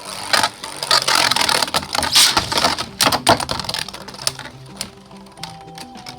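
Two Beyblade Burst tops launched into a stadium, spinning and clashing in a rapid, dense clatter that thins to a few scattered clicks after about three and a half seconds as the battle ends.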